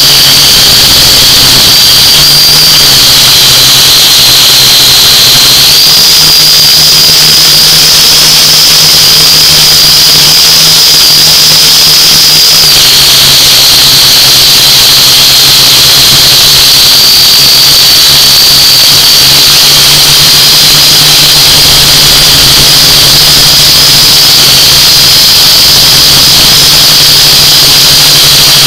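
A drone's electric motors and propellers whining steadily in flight, loud and close, the whine stepping up and down in pitch a few times as the motor speed changes.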